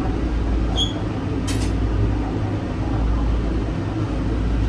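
Cabin noise of an automated airport people-mover train arriving at a station: a steady low rumble and hum, with a brief high chirp about a second in and a short click soon after.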